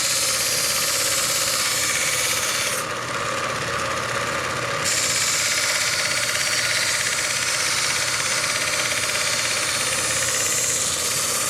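Belt grinder running with a knife blade held against the belt, giving a steady grinding noise over the motor's hum, as the dull edge is ground back. The grinding drops off for about two seconds a few seconds in, then resumes.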